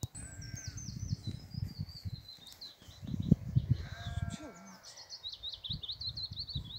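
A small songbird singing quick, high chirping phrases that fall in pitch, two runs of song one after the other. A low, uneven rumbling noise runs underneath.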